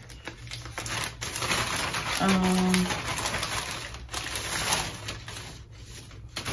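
Scissors snipping and a plastic mailer bag rustling and crinkling as a package is cut open, with short clicks throughout. About two seconds in, a brief hummed note from the woman opening it.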